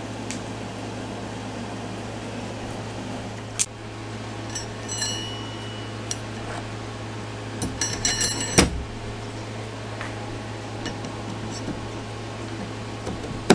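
Metal clutch parts of a garden tractor clinking and knocking as they are handled on a workbench, over a steady low hum. A small metal part rings briefly about five seconds in, and a cluster of clicks ends in a sharp knock a little past eight seconds in.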